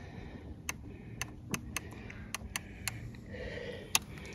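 Irregular sharp ticks, two or three a second, over a low steady rumble.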